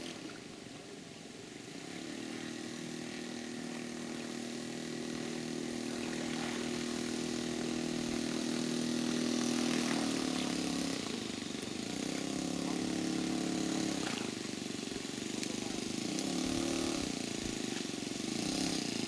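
Engine of a radio-controlled model floatplane running at taxi power on the water, throttled up for several seconds, eased off, then opened up twice more in shorter spurts. A hiss of water from the floats builds while it is at its loudest.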